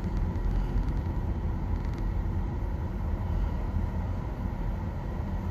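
Steady road and tyre rumble heard inside the cabin of a moving Nissan Leaf electric car, with no engine sound.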